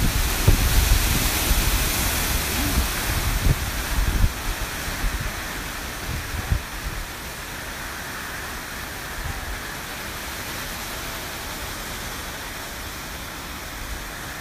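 Hurricane wind and rain: a dense, steady rushing noise. For the first four seconds or so, gusts buffet the microphone with low thumps, then it settles to an even hiss.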